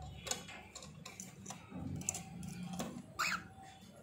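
Cockatiel's claws scratching and tapping on the wooden nest box as it climbs out, with a short rising chirp about three seconds in.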